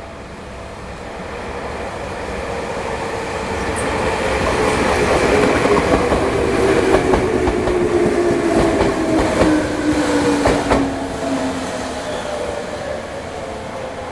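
A train passing by: the sound swells to a peak in the middle and fades again, its tone slowly falling in pitch as it goes past, with a run of wheel clacks while it is closest.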